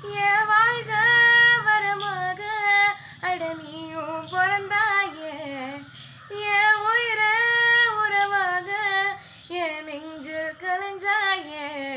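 A young woman singing solo and unaccompanied, in long held notes with wavering ornaments, in several phrases separated by short breaths.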